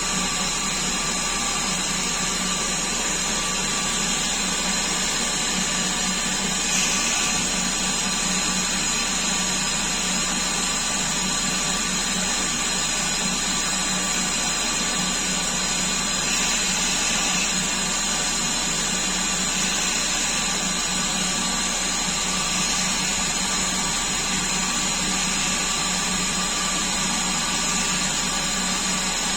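CNC-converted Coronet lathe running on its first test, a steady motor noise with several steady high tones and little change; near seven seconds in and again around sixteen to seventeen seconds there are slight rises.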